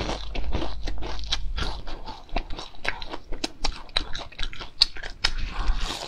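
Crunching and chewing of crispy deep-fried enoki mushrooms, with many sharp, irregular crackles as the fried batter breaks between the teeth.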